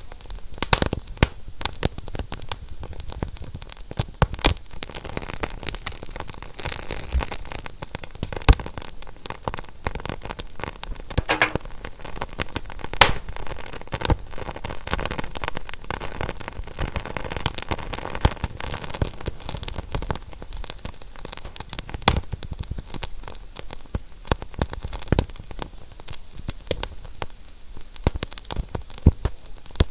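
Wood fire burning with steady hiss and frequent sharp, irregular crackles and pops.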